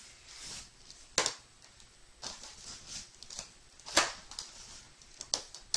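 Small cardboard blind boxes being picked up and set down on a table: about three sharp taps, with light rustling of the cardboard between them.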